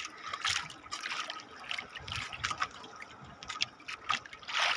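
Water trickling and dripping, with small irregular splashes and taps and a slightly louder splash near the end.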